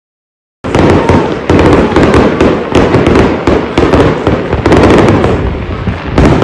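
Aerial fireworks display going off: a dense, loud run of booms and crackling bursts that starts suddenly about half a second in.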